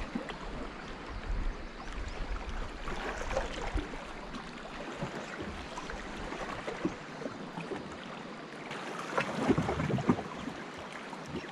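Small waves lapping and gurgling against shoreline rocks, with a louder slosh about nine to ten seconds in.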